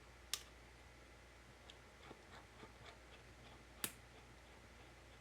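Two sharp clicks, one about a third of a second in and one near the end, with a few faint light ticks in between, from a small precision screwdriver working tiny T3 screws on a MacBook Pro.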